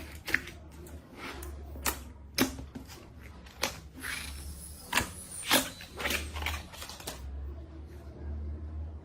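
Slime being squeezed and poked by hand, giving irregular sharp pops and clicks as trapped air bursts, a few of them loud.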